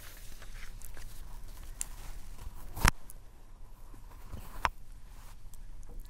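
Low background noise with a steady low hum, broken by a sharp loud click about three seconds in and a softer click a little before five seconds.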